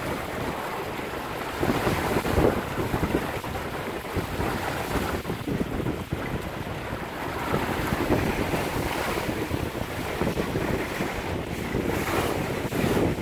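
Wind gusting across the microphone aboard a small sailboat under way, with water washing along the hull of the Beneteau First 211. The noise swells and eases unevenly.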